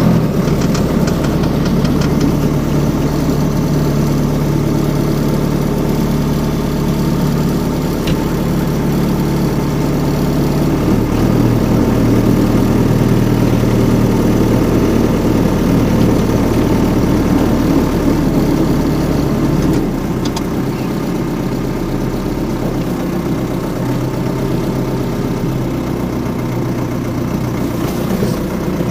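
Homemade mini-tractor's engine running steadily, a little quieter from about two-thirds of the way through.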